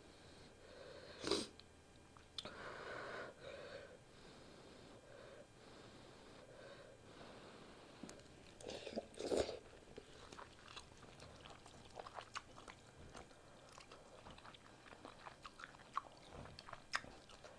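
A person eating beef pho rice noodles: quiet chewing and mouth sounds, with scattered short clicks and smacks. The loudest come about a second in and again about nine seconds in.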